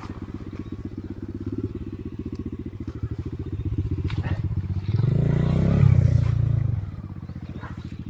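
Enduro motorcycle engine idling with a steady, rapid chug. About five seconds in it is revved up hard for under two seconds, then drops back to idle.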